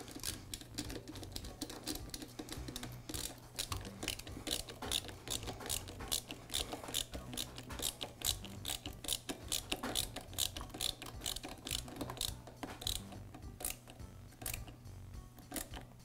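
Screwdriver turning the ground-wire screw in a Ridgid drain auger's motor frame: a fast run of small clicks, several a second, thinning out near the end.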